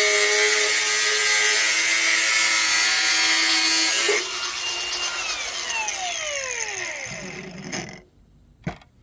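Power cutting tool running under load as it cuts. About four seconds in it is released and winds down, its whine falling in pitch and fading over about three seconds. A single sharp click follows near the end.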